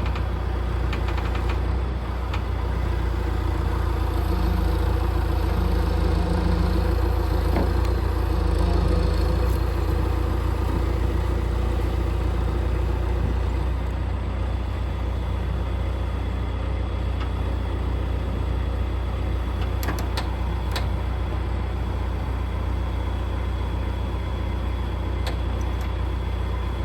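A truck driving: steady engine and road rumble, with a few brief clicks about two-thirds of the way through.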